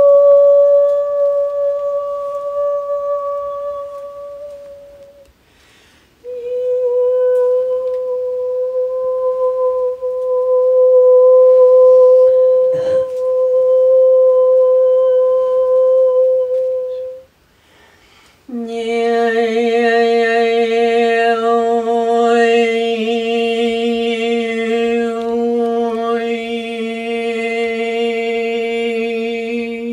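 A woman's voice holding long, steady humming notes: a high note that breaks off about five seconds in, then a slightly lower one held for about eleven seconds, and after another short break a lower, fuller note rich in overtones for the last eleven seconds.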